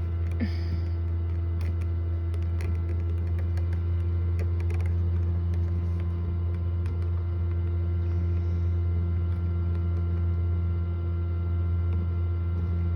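Steady electric hum of a Hovabator egg incubator's fan and heater, with a few faint short ticks over it.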